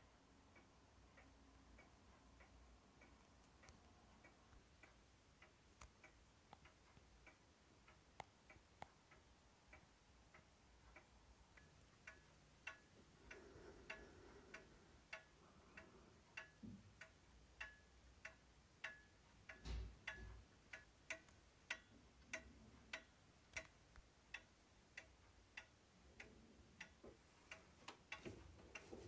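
Early-1930s F.M.S. Mauthe box wall clock ticking: a faint, steady tick-tock from its pendulum escapement, a little under two beats a second, growing louder partway through.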